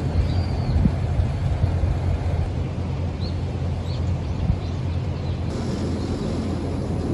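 Steady low rumble of sea waves, with a few short faint high chirps from birds.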